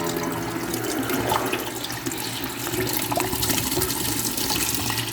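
Ucclife 1.5 kg mini washing machine with water rushing and gurgling through it over a low steady motor hum.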